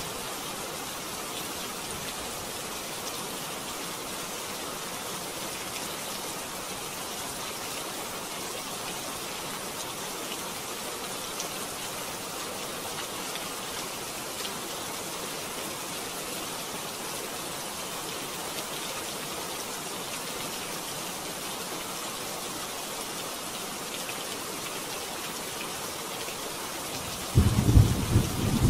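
Steady rain falling in a continuous even hiss. Near the end, loud low thunder breaks in and rumbles in several surges.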